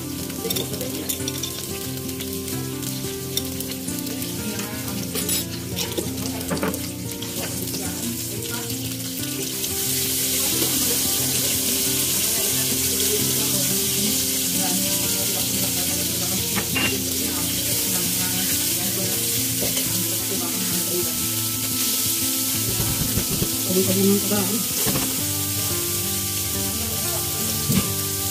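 Capers frying in olive oil in a nonstick pan, a steady sizzle that grows louder about ten seconds in as chopped parsley goes into the hot oil.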